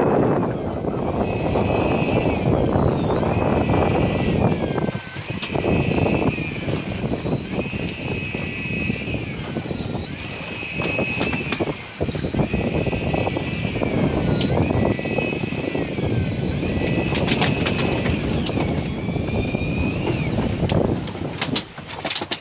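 Electric fishing reel's motor whining as it winds in line, its pitch dipping and coming back up about every two seconds, over a loud rush of wind and boat noise. A few sharp clicks near the end.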